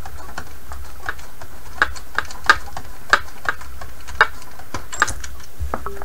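Irregular clicks and small knocks of hands working the antenna coax plug loose from the rear antenna terminal of a transceiver, over a steady low hum.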